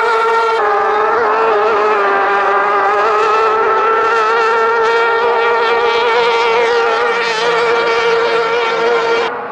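Racing outboard motor running hard: a loud, high-pitched, steady engine note that wavers slightly in pitch, breaking off abruptly near the end.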